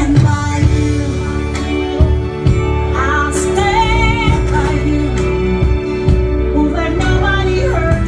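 Song with a woman singing over a steady low bass line, her held notes wavering with vibrato, played loud in a nightclub.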